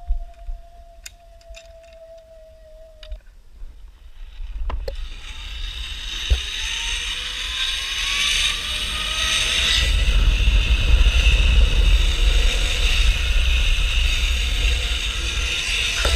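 Zip-line trolley pulleys rolling along the steel cable, starting about four seconds in and building to a loud whir with a slowly rising pitch as the rider picks up speed. Wind rumbles on the camera's microphone throughout the ride.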